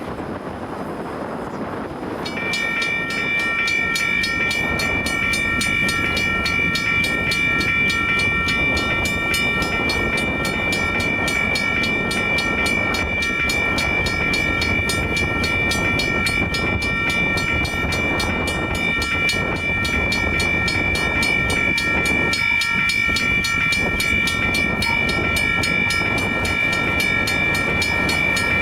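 WRRS electronic railroad crossing bell ringing: it starts abruptly about two seconds in and keeps up a fast, even ding over a steady low rush.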